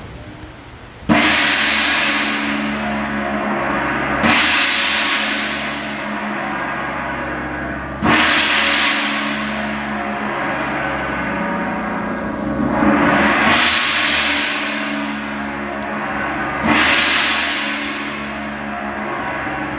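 A large hanging gong is struck five times, the first about a second in and then every three to four seconds. Each stroke rings on, its high ringing dying away over a few seconds before the next.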